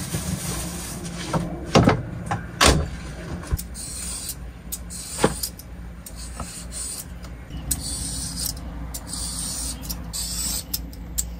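Carrot being peeled with a hand vegetable peeler: a run of quick scraping strokes, after a few knocks as things are handled and set on the worktop near the start, over a low steady hum.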